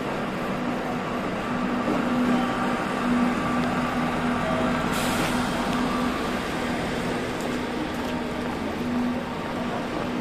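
Train running noise: a steady rumble with a low hum that swells and fades. A short hiss of air comes about halfway through.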